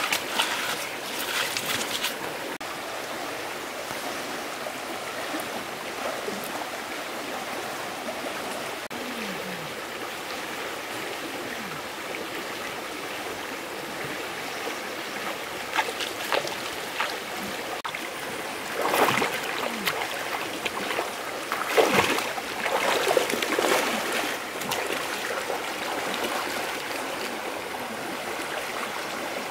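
A stream running steadily, with a few louder splashing surges of water about two-thirds of the way through.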